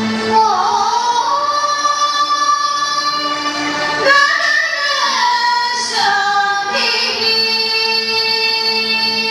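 Music for a stage dance: a high female voice sings a slow melody of long held notes that glide between pitches, over a steady drone.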